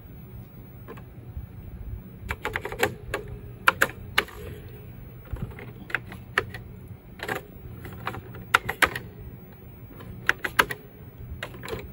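Keys typed on the Osborne 1 computer's keyboard in short clusters of a few keystrokes, with pauses of a second or so between, over a steady low hum.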